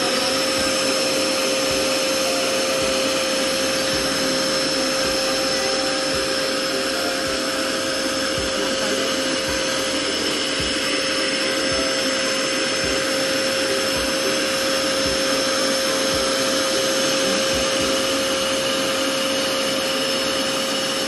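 Electrolux Well Q6 handstick vacuum cleaner running steadily while its brush nozzle is worked across the floor: a constant motor whine holding one pitch.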